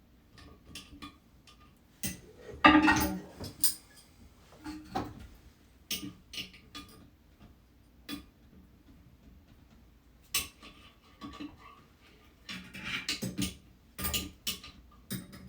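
Tools clinking and knocking at irregular intervals, metal on metal, as a wrench and screwdriver work the tank-to-bowl bolts of a toilet; the loudest knock comes about two and a half seconds in.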